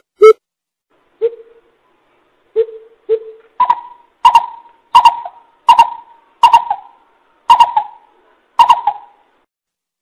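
Coucal calling a spaced series of hoots: three lower notes, then about seven higher notes roughly two-thirds of a second apart, spreading out toward the end.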